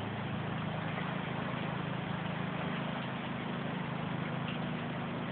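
Torrential rain pouring down steadily, with a steady low hum beneath it.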